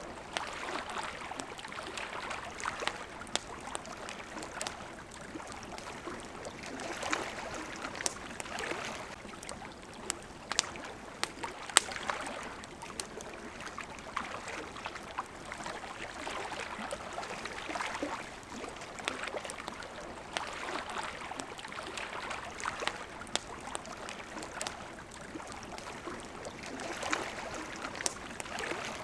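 Campfire crackling, with scattered sharp pops (one louder pop about twelve seconds in), over water washing steadily in slow swells.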